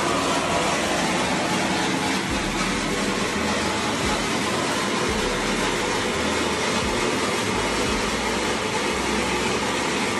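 FF pyro spark fountain burning, throwing a tall column of sparks with a steady, even hiss.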